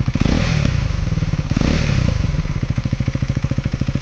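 KTM Duke 390 BS6's single-cylinder engine revved on the throttle: a blip at the start and another about a second and a half in, each dropping back, then a steady idle.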